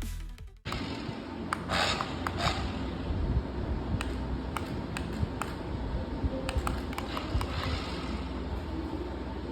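Music cuts off, then scattered light clicks and taps sound over a steady hiss.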